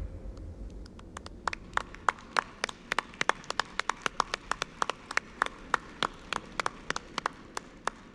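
Audience applause: scattered, separately heard hand claps, several a second and unevenly spaced. A low rumble fades out during the first second.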